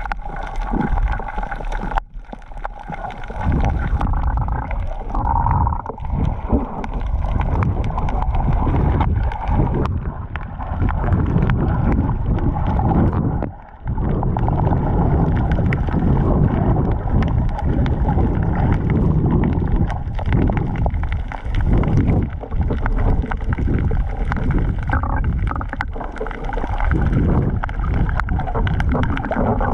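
Muffled underwater rumble and gurgling of water moving around a camera in a waterproof housing, with a steady droning hum running through it, dipping briefly about two seconds in and again about halfway through.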